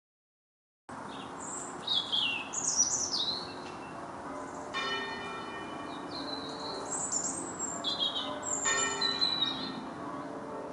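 Half-muffled church tenor bell tolling a death knell, two strokes about four seconds apart, each ringing on and slowly fading. Birds chirp and sing around it, loudest in the first few seconds.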